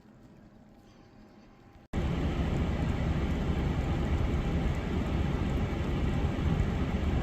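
Faint hiss, then an abrupt cut about two seconds in to a loud, steady rumbling noise with no clear pitch.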